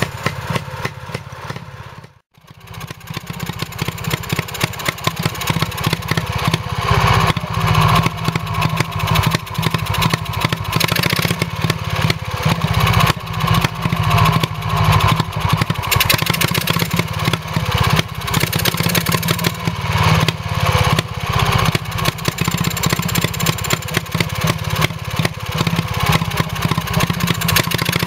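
1934 Villiers WX11 WBH 2.5 hp, 343cc two-stroke single-cylinder stationary engine running steadily under its centrifugal governor, with a rapid, even exhaust beat. The sound breaks off briefly about two seconds in, then picks up again.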